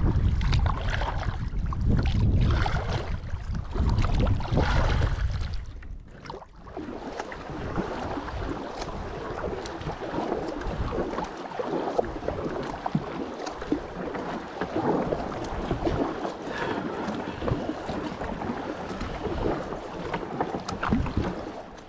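Perception kayak being paddled across a lake. For about the first six seconds water rushes and splashes along the bow, with wind rumbling on the microphone. After that the rumble drops away, leaving lighter water splashing and lapping against the hull.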